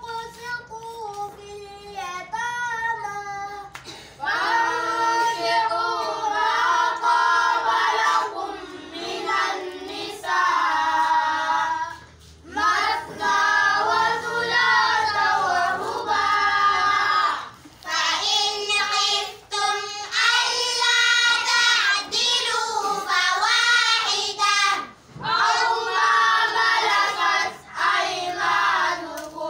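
A group of boys chanting Quranic recitation (qira'at) together in unison, in long melodic phrases separated by short breaks.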